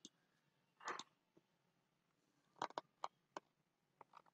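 Near silence broken by a few faint computer mouse clicks, three close together between about two and a half and three and a half seconds in. A soft short noise about a second in.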